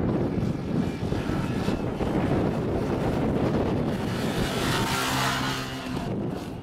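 Motorcycle engines running. About five seconds in, one passes close, a rushing whoosh over a steady engine note.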